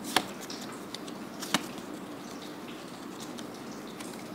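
Trading cards being handled and slid past one another, with two sharp clicks, about a fifth of a second and a second and a half in, and a few faint ticks.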